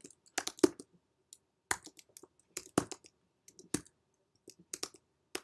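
Typing on a computer keyboard: single key clicks at an uneven pace, with short pauses between small runs of keystrokes.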